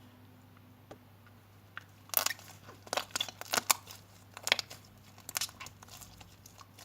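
Watery, foamy green slime being squished and stretched by hand, giving a run of irregular wet crackles and pops that starts about two seconds in.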